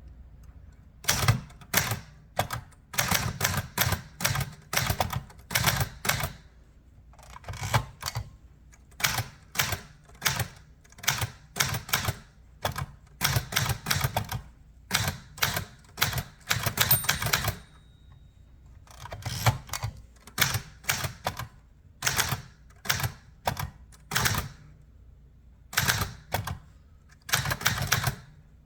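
Remington Ten Forty typewriter being typed on: runs of sharp, irregular keystroke clacks broken by short pauses, with a brief ring a little past halfway.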